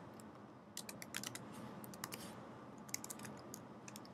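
Faint computer keyboard typing: short runs of keystroke clicks with brief pauses between them, as short shell commands are entered at a terminal prompt.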